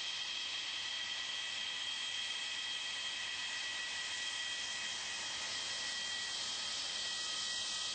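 Jet fighter engine running, a steady hiss with several high, even whining tones.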